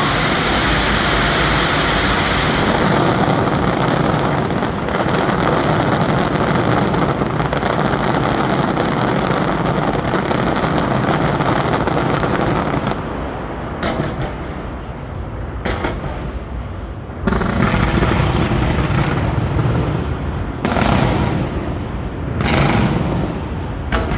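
Fireworks display going off in a dense, continuous barrage of bangs and crackling. About halfway through it thins into separate bursts with short lulls between them.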